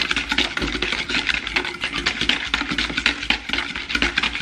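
Wire whisk beating a runny egg-yolk, sugar, milk and oil batter by hand in a stainless steel bowl: fast, even clicking of the tines against the metal. The batter is being whisked to dissolve the sugar.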